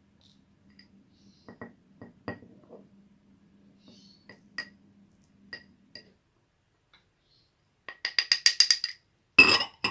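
A spoon clinking and tapping against a glass bottle as ground thyme is spooned in: scattered light taps, then a quick rattling run of clinks about eight seconds in and a short rustle near the end.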